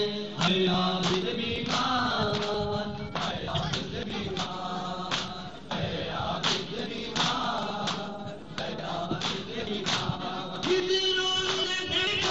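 Noha recitation: men's voices chanting together, without instruments, over a steady beat of hands slapping bare chests in matam, about one and a half to two slaps a second.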